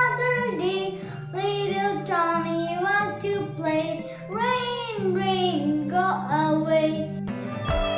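A child singing over a children's-song backing track. The singing stops about seven seconds in, leaving a few held instrument notes.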